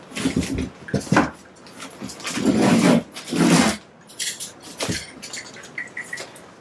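Kraft paper facing of a fiberglass insulation batt crinkling and rustling as it is pressed flat and lifted, in several loud irregular bursts, the loudest between about two and four seconds in.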